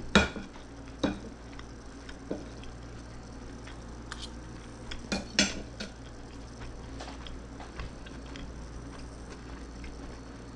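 Fork and knife clinking and scraping against a ceramic dinner plate while eating: a few sharp clinks, the loudest right at the start, another about a second in, and a quick cluster around five seconds in, then only faint taps.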